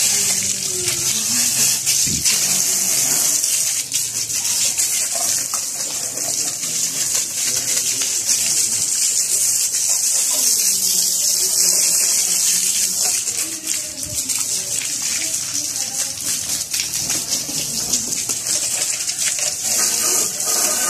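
A steady stream of water from a hose splashing and hissing against a motorcycle's mudguard, engine and frame as it is washed down.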